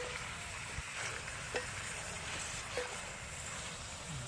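Pork and fish roe frying in a pan with a steady sizzle, while a metal utensil knocks against the pan three times, each knock ringing briefly.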